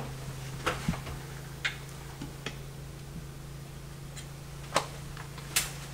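Scattered sharp clicks and taps as track-light heads are swivelled and aimed on a ceiling track, over a steady low hum.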